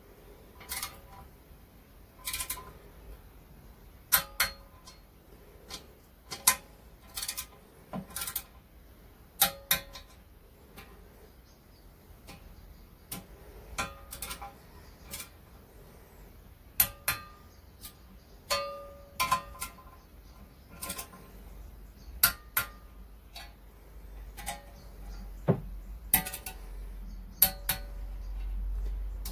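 Torque wrench and socket working steel oil pan bolts, tightening them to 10 Nm: separate sharp metallic clicks and clinks with a short ring, roughly one a second.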